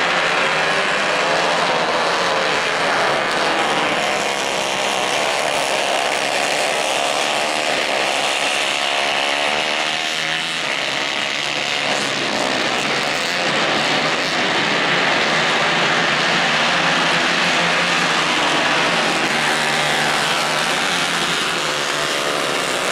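Engines of several 150 cc kayak-class racing karts running hard together, their overlapping notes rising and falling as the karts accelerate and lift through the corners.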